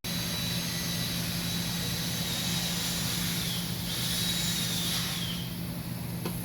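A high-speed power tool whining with a hiss over a steady low hum; its pitch dips twice, about three and a half and five and a half seconds in.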